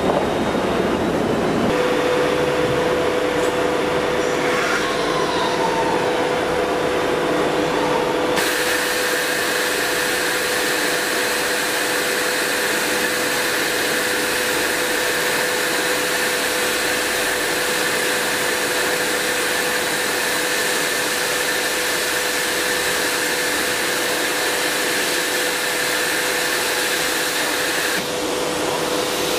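CNC router running its automatic tool-length measurement, with the spindle moving down over the tool-length sensor. Its drives give a steady whine with a falling glide in pitch a few seconds in, over an even hiss that gets louder from about eight seconds in until near the end.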